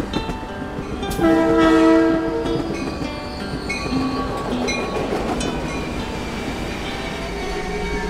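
Train recordings: a locomotive air horn blows a blast of several notes at once for about a second, starting about a second in, over continuous rumbling train noise.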